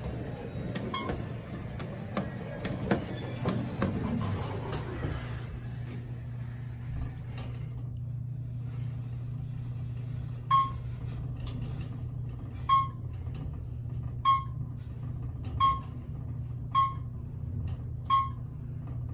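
Steady low hum with a short electronic beep repeating every one to two seconds in the second half; scattered clicks and knocks in the first few seconds.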